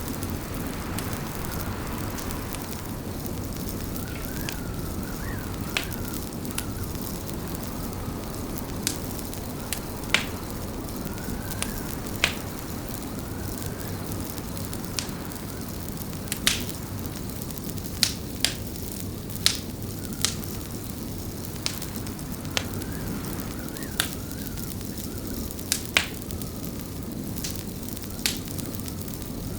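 Wood fire crackling in a fireplace: a steady low rumble and hiss with sharp, irregular pops every second or two. A faint wavering whistle comes and goes under it.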